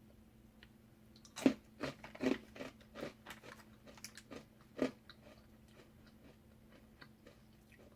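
A person biting into and chewing a crunchy snack. There is a sharp crunch about a second and a half in, then a run of crunching chews that stops about five seconds in.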